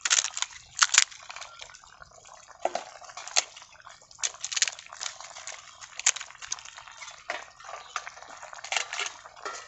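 Crisp fried papads crackling as they are broken by hand and dropped into a pot of curry: irregular sharp crackles mixed with wet liquid sounds, the loudest about a second in.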